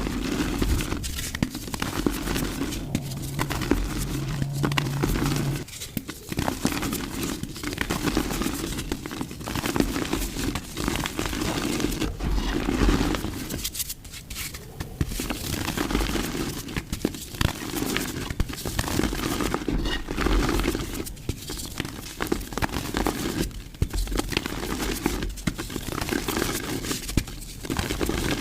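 Mud or clay being crushed and crumbled, a steady crackling crunch that comes in bouts with a few brief pauses.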